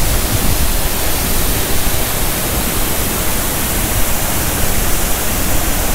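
A large waterfall in heavy flow, pouring over rock ledges into a churning pool: a loud, steady rush of water.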